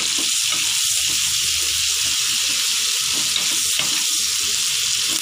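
Sliced onions sizzling steadily in hot mustard oil in a non-stick kadai, with a wooden spatula scraping and stirring through them.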